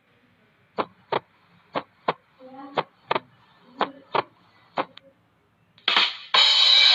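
About ten short, sharp taps, falling roughly in pairs about a second apart, with faint voice sounds between them. A loud, hissy burst begins near the end.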